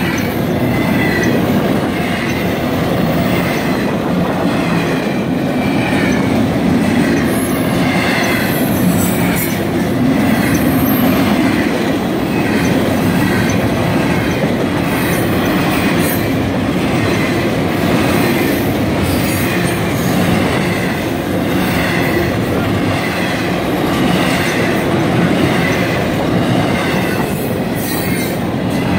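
Double-stack container freight train rolling past close by: a loud, steady rumble of steel wheels on rail, with a clatter that repeats about once a second and a few brief high-pitched wheel squeals.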